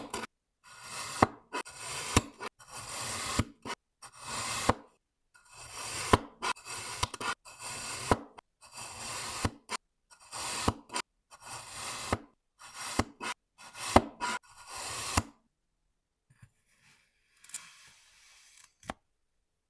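A knife cutting through kinetic sand again and again, each cut a short hiss, some with a sharp click. The cutting stops about fifteen seconds in, leaving only faint rustling and a single click.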